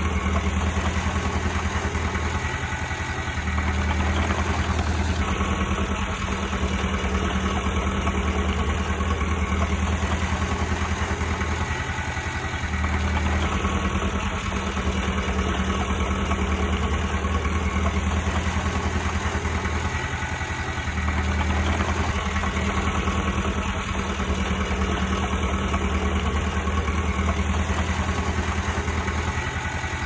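Komatsu D20P bulldozer's diesel engine running steadily, its low note swelling and easing every eight or nine seconds.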